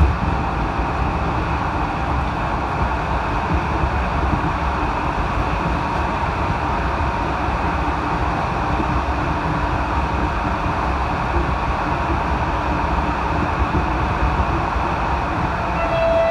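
Steady rolling rumble of a moving train, heard from on board. Near the end a horn sounds, one steady held tone.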